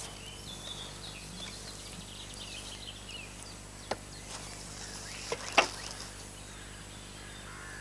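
Quiet outdoor background with faint high bird chirps in the first few seconds, then a few sharp clicks about four and five and a half seconds in, the last one short and loud.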